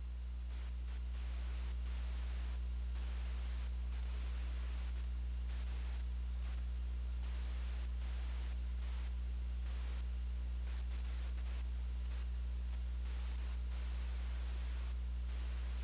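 Dead air on a weather radio channel: a steady low hum under a hiss of static that flickers in and out.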